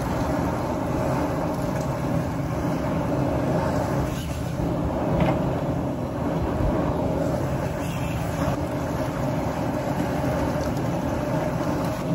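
A high-pressure propane burner running steadily under a large crawfish-boiling pot of water at the boil, a constant low rush with no breaks.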